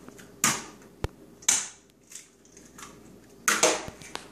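Eggs being cracked on the rim of a mixing bowl: a run of sharp cracks with crunching shell, the strongest about half a second, a second and a half and three and a half seconds in, with lighter taps and clicks between.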